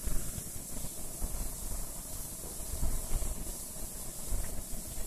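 Cooked mutton chukka pieces sizzling in oil on a hot flat iron griddle while a steel spatula stirs them: a steady hiss.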